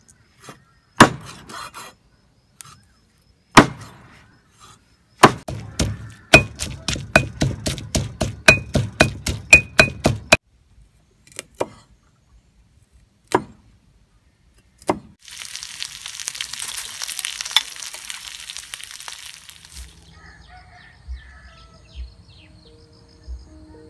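Heavy cleaver chopping on a wooden chopping block: a couple of single hard chops, then a fast run of about five chops a second for some five seconds, then a few more single strikes. After that comes about five seconds of hiss, and faint music with low thumps near the end.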